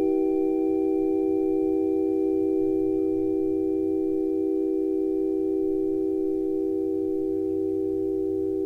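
Sustained ringing tone: several steady pitches held together like a chord, slowly fading.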